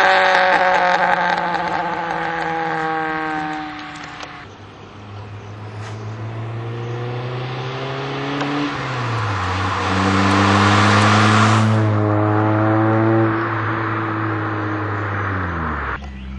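A car's engine and exhaust running, its pitch falling away over the first few seconds, then a steady drone with a step down in pitch and a louder stretch in the middle, and a sudden pitch change near the end.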